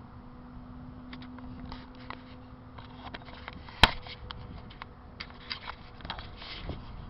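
Close handling noise: scattered small clicks and rustles with one sharp, loud click a little before the middle, over a steady low hum that stops about halfway through.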